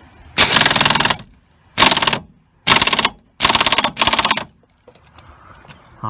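Pneumatic impact wrench with a 14 mm socket hammering in short trigger bursts, five of them, as it runs a seat belt anchor bolt in and tightens it fully.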